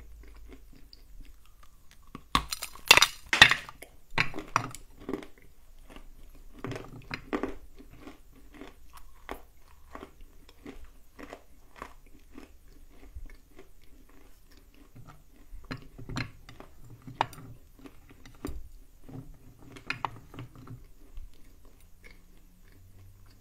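Close-up biting and chewing of dry lumps of Bashkir clay. A few loud, crisp crunches come about three seconds in, then steady chewing, with more sharp crunches around sixteen and twenty seconds in.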